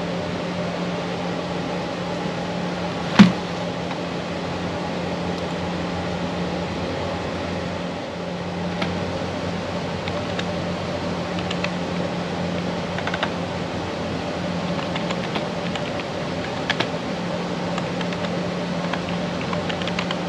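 Typing on a computer keyboard, with scattered key clicks through the second half, over a steady fan hum. A single sharp knock about three seconds in is the loudest sound.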